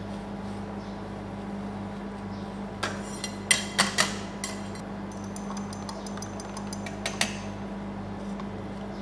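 Steel ice-cream-roll spatulas clinking and tapping against each other and the stainless cold plate: a cluster of sharp metallic clinks about three to four seconds in, then a run of lighter ticks and two more clinks about seven seconds in. A steady low hum runs underneath.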